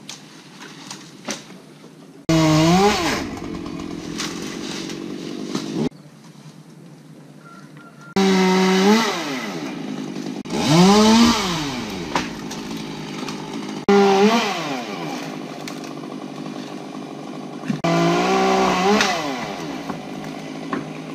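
Chainsaw revved to full throttle in four bursts while cutting tree sections. Within each burst the pitch climbs and sags, and it drops back between bursts.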